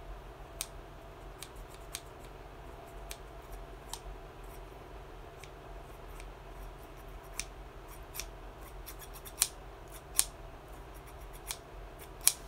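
Irregular sharp clicks and taps, scattered unevenly, with three louder ones in the last few seconds, over a faint steady hum.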